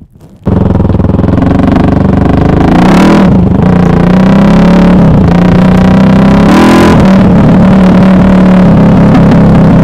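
1998 Husaberg FC600's big single-cylinder four-stroke engine pulling the bike along a dirt trail. It comes in loud about half a second in, and its revs dip and pick up again as the throttle is worked, with a clear climb near the end.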